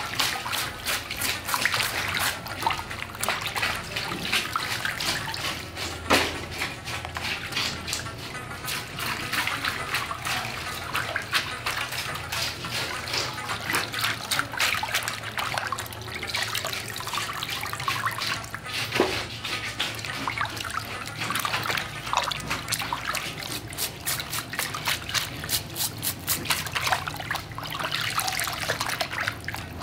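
Water splashing and sloshing in a plastic basin as raw fish are scrubbed under water with a plastic bristle brush, with many short irregular splashes and drips as the fish are turned and lifted out.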